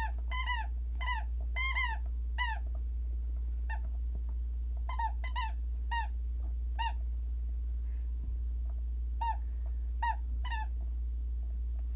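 A puppy whining in short, high squeaks that come in runs of several, with pauses between the runs, over a steady low hum.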